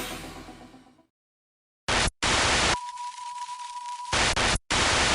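Music fades out over the first second, followed by a moment of silence. About two seconds in, loud bursts of TV-style static begin, cutting in and out abruptly. Between the bursts, quieter hiss carries a steady beep tone: a glitch-style static transition effect.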